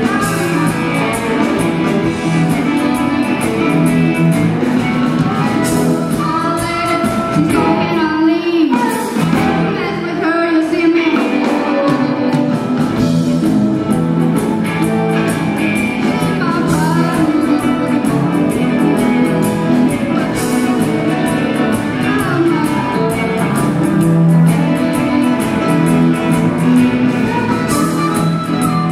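Live rock band playing: electric guitars over a drum kit, with horns and keyboards in the mix. About eight seconds in the bass and drums drop back for a few seconds under bending lead lines, then the full band comes back in.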